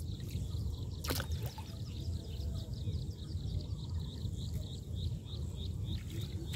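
Low steady rumble outdoors on the water while a fishing net is lifted out of the river from a wooden canoe, with one sharp knock about a second in. A faint high chirp repeats about three times a second in the background.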